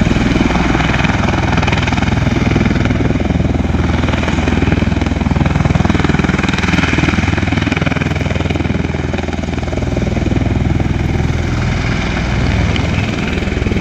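V-22 Osprey tiltrotor hovering in helicopter mode, its two big rotors and turboshaft engines giving a loud, steady rumbling roar as the downwash churns up dust.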